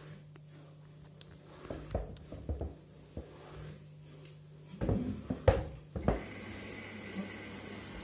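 Front-loading washing machine running a wash cycle with a pair of shoes in the drum: a low hum and two runs of knocks and thumps, the loudest about five and a half seconds in. About six seconds in, a steadier whirring hum with a faint high whine and hiss sets in.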